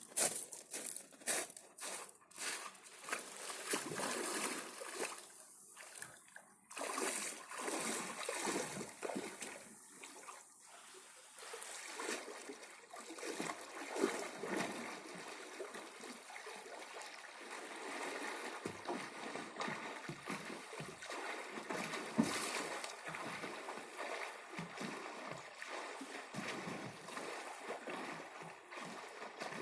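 Sea of Okhotsk water splashing and sloshing at the shoreline, swelling and ebbing unevenly, with a few sharp clicks in the first few seconds.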